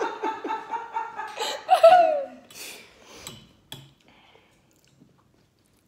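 A woman laughing for about two seconds, then a few short clicks before it falls nearly quiet.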